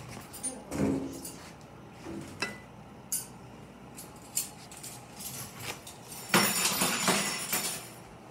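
Scattered light clinks and knocks of objects being handled on a workbench, then a louder rough noise lasting over a second about six seconds in.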